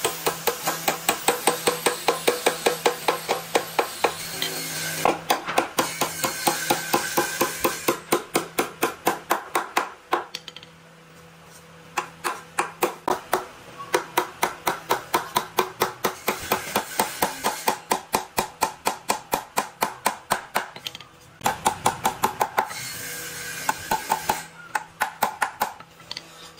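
Hammer driving nails into a wooden bed-frame rail, rapid blows at about four a second. It comes in runs that break off twice for a second or two.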